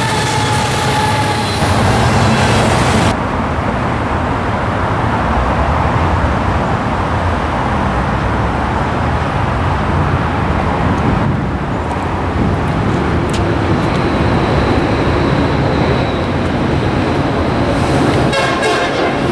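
Union Pacific diesel freight locomotives passing close by: the train horn sounds and stops about a second and a half in, then the heavy steady rumble of the engines and rolling train fills the rest.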